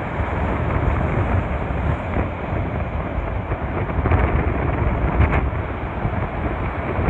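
Storm surf breaking and crashing against a stone sea wall: a continuous heavy rush of water, surging louder about four and five seconds in, with wind buffeting the microphone.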